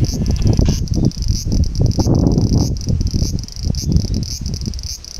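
Bear cicada (kumazemi) song: a high, buzzing chorus that swells in pulses about once a second. Over it runs a louder, irregular low rumbling on the microphone.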